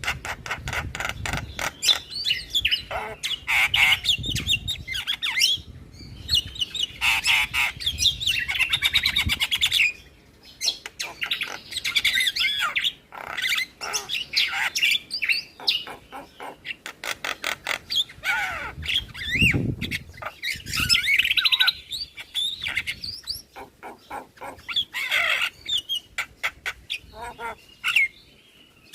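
Javan myna singing a busy, varied song of whistles, harsh squawks and long runs of rapid clicking rattles, with hardly a pause.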